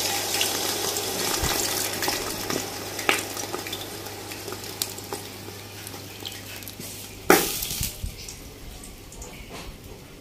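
Melted jaggery syrup pouring from an aluminium pan through a metal mesh strainer into a large aluminium pot. The splashing dies down as the stream thins, with small clinks of metal on metal and one sharp metal knock about seven seconds in.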